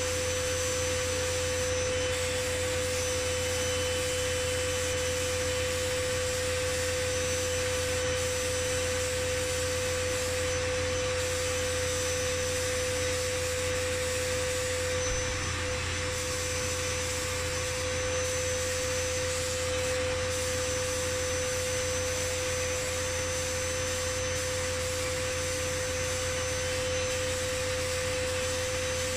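Media blasting cabinet in use: the blast gun gives a steady hiss of compressed air and abrasive grit striking a round metal stove part. Under it runs a constant hum with one steady tone.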